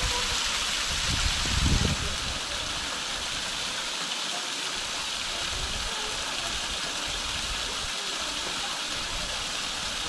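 Small waterfall splashing steadily down a rock face: a constant hiss of falling water, with a brief low rumble about a second and a half in.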